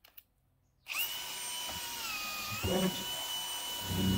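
Powerful electric drill driving a 16 mm extended wood bit into a timber post, starting about a second in. Its whine dips in pitch briefly under load, with heavier low rumbles as the bit bites.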